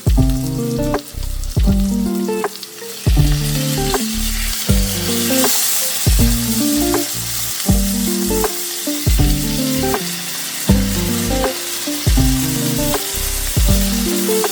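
Food sizzling as it fries in hot oil, a steady hiss, under background music with a plucked bass line and melody.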